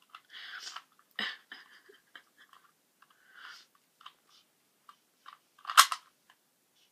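Plastic Rubik's cube being twisted by hand: irregular clicks and rattles as the layers turn, with one louder clack near the end.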